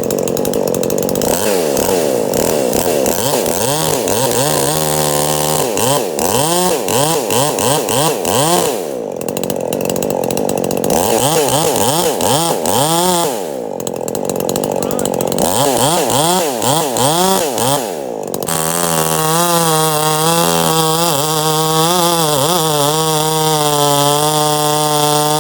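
Ported Husqvarna 543 XP two-stroke chainsaw cutting. The engine pitch repeatedly dips and climbs back as the chain bogs into the wood and frees up, then holds at a steady high rev over the last several seconds.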